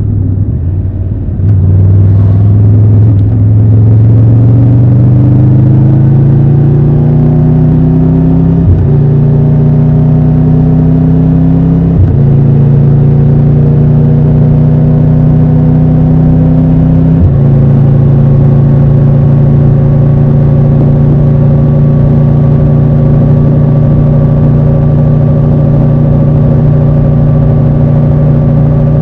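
Triumph Tiger 1200 Rally Pro's three-cylinder engine pulling away from low revs with a rising note. It upshifts about 9, 12 and 17 seconds in, each shift dropping the pitch, then runs steadily at a cruising speed.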